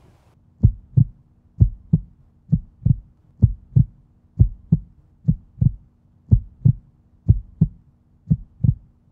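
Heartbeat sound effect: a steady lub-dub double beat, about one per second, nine beats in all, starting about half a second in.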